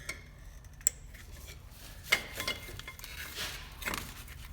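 A few sharp metallic clinks and taps of tools and metal parts knocking together: a single click about a second in, then several more later, one ringing briefly.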